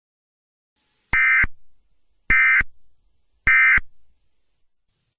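Emergency Alert System SAME digital data tones: three short, identical bursts about a second apart, the pattern of the end-of-message code that closes an alert.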